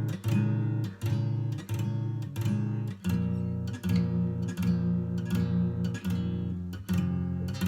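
Acoustic guitar strummed in a steady rhythm, with the chord changing about three seconds in.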